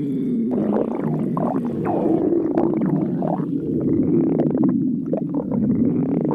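Stomach growling: a continuous gurgling rumble with bubbling squeaks that slide up and down in pitch.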